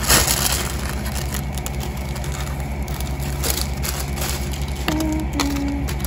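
Crinkly rustling of iridescent tinsel strands and cellophane-wrapped items as they are handled in a cardboard gift box. The rustle is loudest just at the start, with fainter rustles later. Quiet background music plays under it, and its tune comes in near the end.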